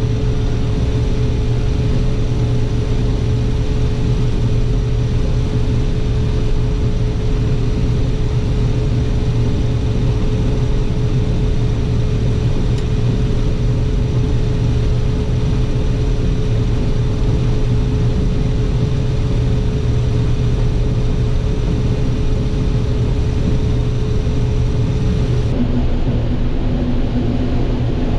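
Combine harvester running steadily while shelling corn: a constant machine drone with a steady whine over it. Near the end the pitch of the whine changes.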